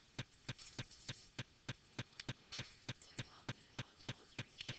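Steady, regular clicking, about three sharp clicks a second, over a faint hiss.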